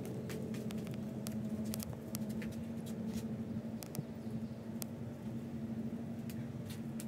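A steady low hum with scattered light clicks and taps over it.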